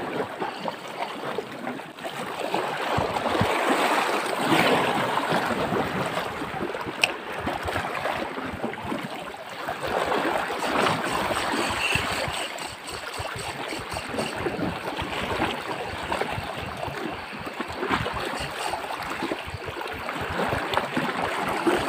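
Sea water washing and gurgling over a shallow rocky reef, swelling and easing in surges.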